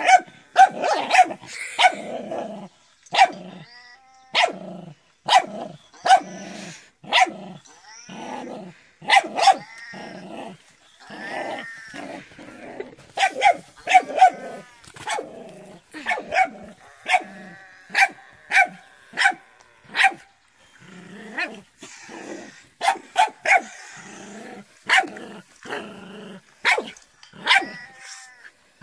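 Small puppy barking repeatedly in sharp yaps, about one to two a second, with growling between the barks. It is warning off a toy cat.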